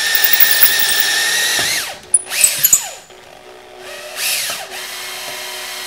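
Electric drill turning a stepped bit through the carbon-clogged EGR passageway of a Honda 3.5L intake manifold, boring it out. It runs with a steady whine, winds down about two seconds in, spins up and down in two short trigger bursts, and then runs on more quietly.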